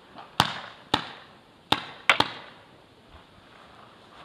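Paintball markers firing: five sharp pops, irregularly spaced, the last two in quick succession a little over two seconds in.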